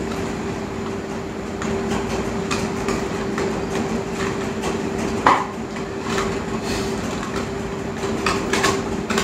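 Clicks and knocks of camcorder parts being handled and detached, loudest about five seconds in and in a quick cluster near the end, over a steady hum.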